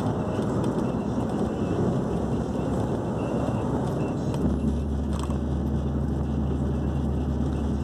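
Diesel engine and road noise of a 420-hp truck tractor hauling about 31 tonnes, heard from inside the cab while driving. A deep steady drone comes in about four and a half seconds in and holds.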